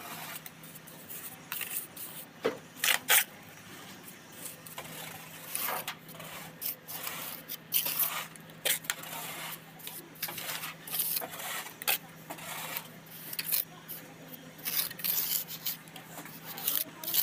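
Steel trowel scraping and spreading wet cement mortar over brickwork in repeated, irregular strokes, with a few sharper clicks of the trowel against brick about three seconds in.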